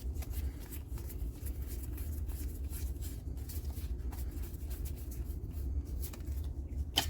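Trading cards being slid and flipped one after another in the hands: a string of faint, quick card rustles and clicks over a steady low hum, with a louder crackle just before the end.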